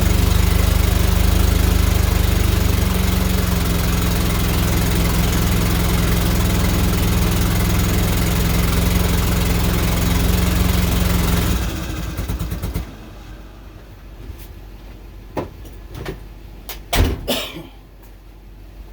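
Nissan Silvia's engine running steadily at a low, even pitch, then stuttering and dying about twelve seconds in. A few sharp clicks and knocks follow.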